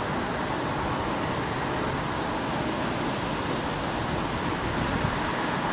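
Steady rushing noise with a gusty low rumble: wind buffeting the microphone outdoors.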